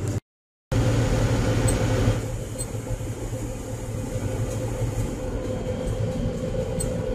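Case IH Magnum 7140 tractor's six-cylinder turbo diesel running hard at about 2260 rpm on the road, heard inside the cab as a steady drone. The sound drops out briefly near the start, and its upper hiss eases about two seconds in.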